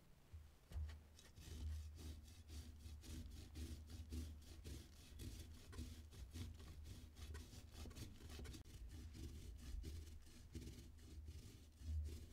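Quick, repeated rasping strokes, several a second, like food being rubbed or scraped against a grater or board.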